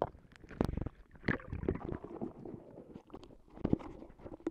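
Muffled sloshing and gurgling of water with a few dull knocks, heard through an action camera's microphone dipped underwater beside a boat during a fish release.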